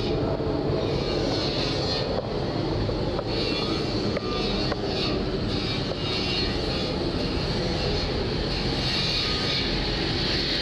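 Steady loud drone of running machinery on an offshore oil platform, with brief rubbing and knocks of the camcorder against clothing as it is carried.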